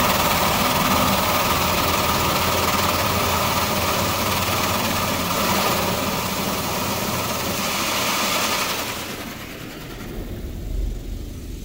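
On-board Premier dryer blowers on an Istobal Flex-5 touchless car wash gantry blowing air over the car, a loud steady rush with a low hum, heard from inside the car. The rush drops away about nine seconds in as the drying pass ends.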